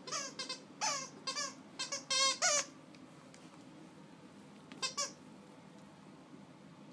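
Squeaker inside a plush reindeer dog toy squeaking as a dog bites down on it: a quick run of squeaks over the first two and a half seconds, some wavering in pitch, then one more about five seconds in.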